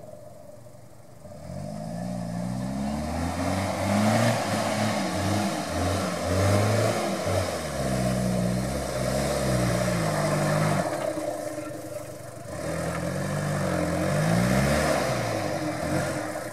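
Toyota Land Cruiser's engine revving up and down repeatedly as the four-wheel-drive works over a steep, rutted dirt track. It eases off briefly about two-thirds of the way through, then picks up again.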